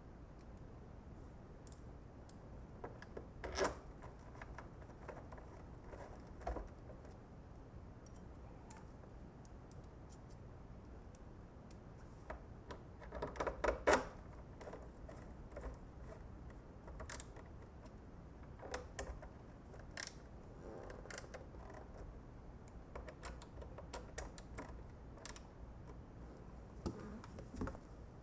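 Faint, scattered clicks and light knocks of screws and a hand tool being handled while refitting the bike's plastic belt guard, with small clusters of taps now and then.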